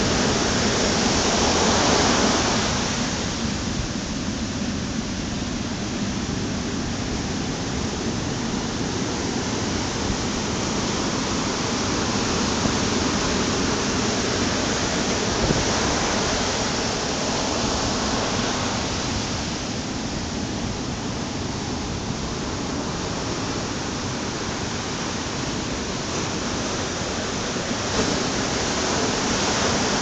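Ocean surf breaking on a sandy beach: a continuous wash of foam that swells louder three times as waves break and run up the shore.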